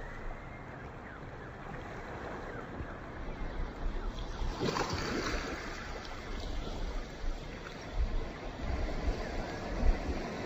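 Ocean surf: a steady wash of waves, with one wave surging in louder about halfway through. Near the end, wind buffets the microphone in low bumps.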